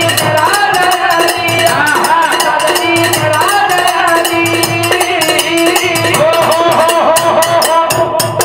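Live Banjara devotional bhajan music: a man singing a bending melody over held tones, with a steady drum beat and rapid metallic jingling percussion. The music breaks off near the end.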